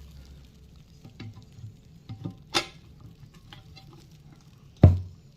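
Scattered light clicks and knocks of a tabletop TV stand's base plate and hardware being handled, set in place and turned, with a heavier knock near the end.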